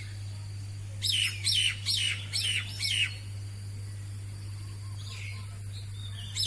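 A starling (jalak) gives a run of five loud, sharp calls, each falling in pitch, about two a second, then a few fainter calls later on. A steady low hum runs underneath.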